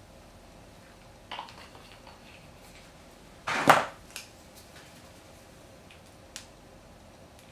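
Plastic foundation bottles being handled as liquid foundation is dispensed onto the back of a hand: a few short clicks and one brief squirt-like burst about three and a half seconds in, over quiet room tone.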